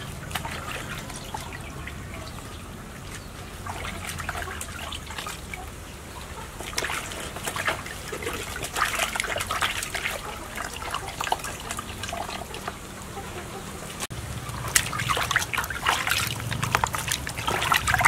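Water splashing and trickling in a plastic basin as hands wash cabbage leaves and, after a cut near the middle, rub a whole plucked chicken under water, in uneven spells of splashing.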